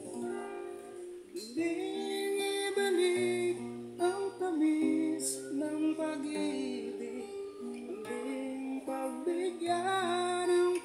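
Acoustic guitar played as accompaniment to a man singing a slow ballad, the voice sliding between notes now and then over the held chords.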